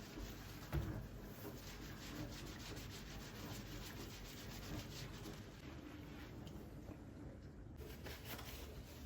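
Quick repeated rubbing strokes against a surface, as in scrubbing, with a single knock about a second in; the rubbing stops shortly before the end.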